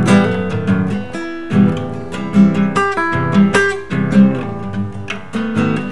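Classical guitar played solo: an instrumental passage of an Argentine folk song, with strummed chords and single plucked notes between the sung lines.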